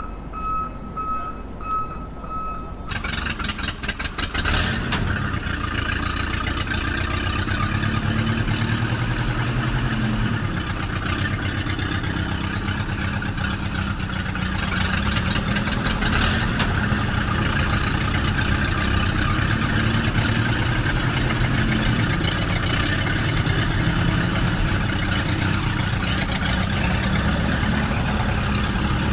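Steady beeping tone for about three seconds, then a vehicle engine cranks with rapid clicking, catches and runs steadily.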